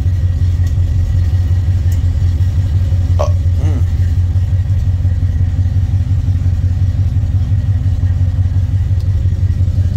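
1971 Chevy C10 pickup's engine, fitted with headers, idling steadily while still cold after a fresh start, heard from inside the cab.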